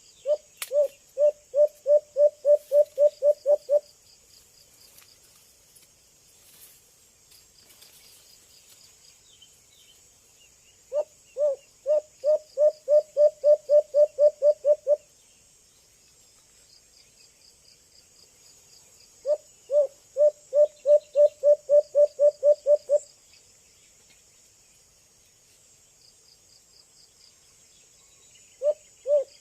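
White-eared brown dove calling: three bouts of about a dozen quick, evenly spaced low hooting notes, each bout lasting three to four seconds, with a fourth bout beginning near the end. Insects trill steadily and high in the background.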